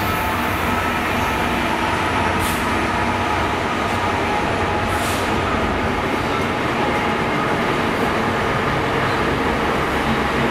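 GB Railfreight Class 66 diesel-electric locomotive with its two-stroke V12 engine running, passing with a train of hopper wagons whose wheels roll steadily over the rails behind it. Two brief high hisses come about two and a half and five seconds in.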